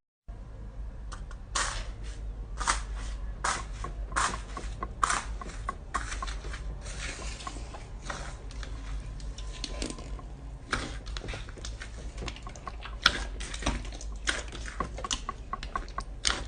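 Slime being squeezed and poked by hand, giving irregular sticky clicks and pops, several a second, over a steady low hum.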